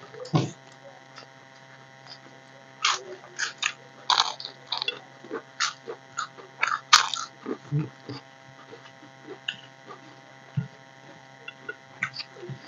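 Close-up eating sounds: crunching bites of fried papad and chewing, with lip and finger sounds from eating rice by hand. They come as a run of short crisp bites, busiest from about three to eight seconds in, over a faint steady electrical hum.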